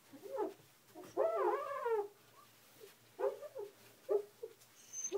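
Siberian husky whining: several short, high, wavering whines, with one longer one about a second in.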